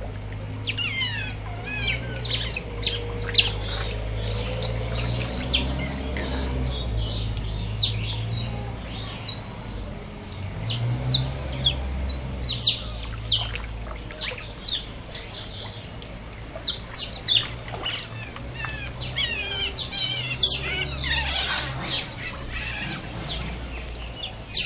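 Otters squeaking: a continual chatter of short, high-pitched squeaks and chirps, many in quick succession and often overlapping.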